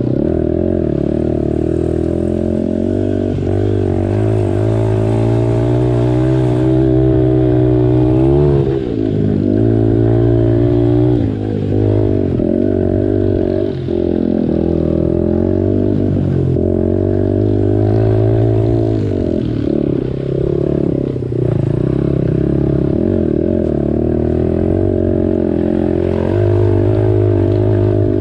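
Small four-stroke single-cylinder pit bike engine working hard up a dirt trail, its revs rising and falling with the throttle and dropping off briefly a few times.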